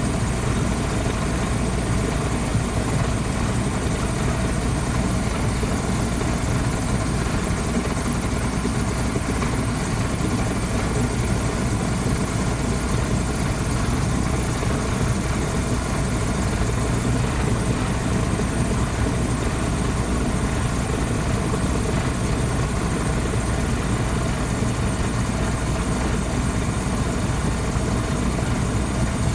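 Waste oil furnace running with its burner lit: a steady, unbroken noise of the burner and blower with a low hum underneath.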